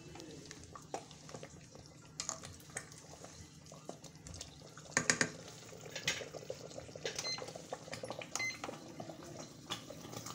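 A ladle scraping and knocking irregularly against the inner pot of an electric pressure cooker while thick semolina kichadi is stirred.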